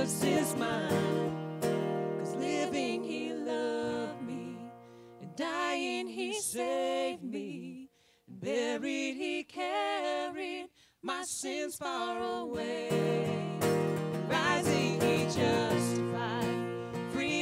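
A gospel hymn sung with acoustic guitar accompaniment. The guitar falls away for several seconds partway through, leaving mostly the singing voice, then comes back in.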